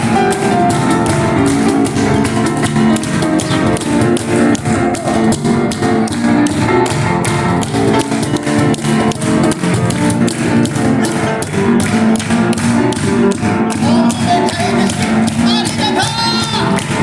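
Piano and cajón duo playing an up-tempo instrumental live: rapid, driving cajón strokes under a busy piano line.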